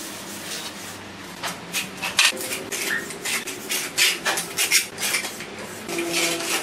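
Steel trowel scraping and tapping on wet cement render as it is smoothed: a run of short, irregular scrapes and light metallic clinks.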